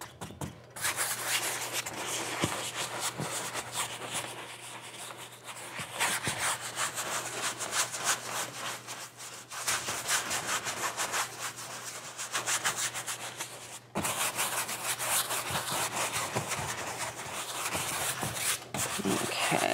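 A 2-inch paintbrush scrubbing liquid clear into a canvas in rapid back-and-forth bristle strokes, with a few short pauses. This is the thin base coat being worked in before wet-on-wet oil painting.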